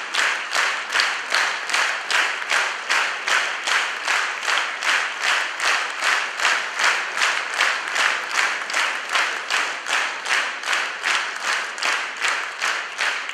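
Concert hall audience clapping in unison: steady rhythmic applause at about three and a half claps a second.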